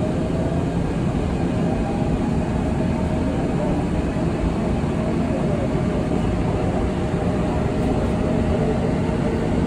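Seoul Subway Line 2 train running out of a station, heard from inside the front car: a steady rumble of wheels and car body with a faint motor whine that slowly shifts in pitch.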